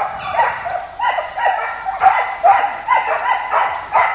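Posavski gonič (Posavina hound) scenthounds baying in quick, high-voiced, overlapping calls, several a second: hounds giving tongue on the chase after wild boar.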